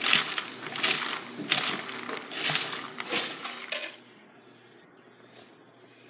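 Froot Loops rattling out of a turn-knob cereal dispenser into a paper bowl in about five quick gushes, one with each turn of the knob. The pouring stops about four seconds in, leaving faint room tone.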